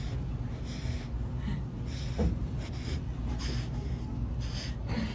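Sea otter nosing at aquarium glass: a series of short breathy snorts, about nine of them, over a low steady rumble.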